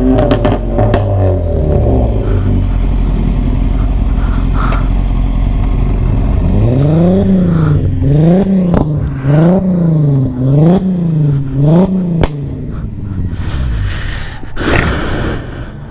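A vehicle engine running steadily, then revved up and down five times in quick succession, about once a second, with a sharp pop just after the last rev.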